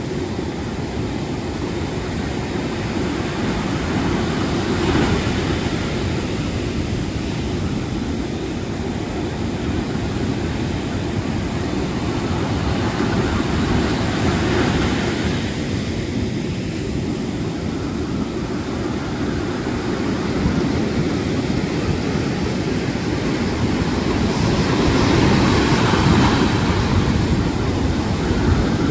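Sea surf in a small storm: waves breaking and washing up a sandy beach, a continuous low rumble of water that swells louder as bigger waves crash about 5, 14 and 25 seconds in.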